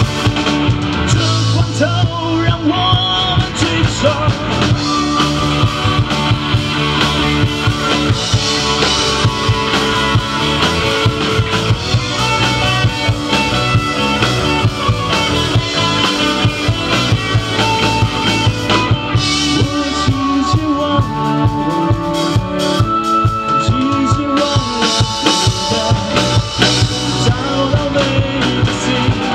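Live rock band playing through a PA: drum kit, electric guitar and a male lead singer, a steady driving beat with no break.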